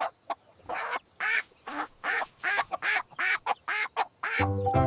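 Hen clucking: a quick series of short clucks, roughly three a second. Music comes in near the end.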